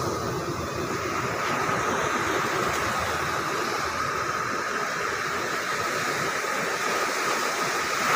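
Ocean surf breaking and washing up the sand in a steady rush, with a thin steady tone above it.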